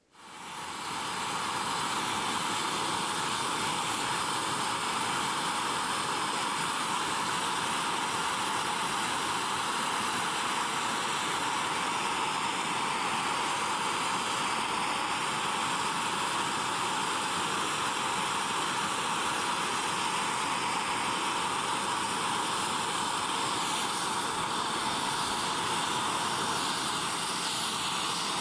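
Steady hiss of a hand-held gas torch flame, rising over the first second or so and then holding level, as it heats a wired-together pair of phosphor bronze halves for silver soldering.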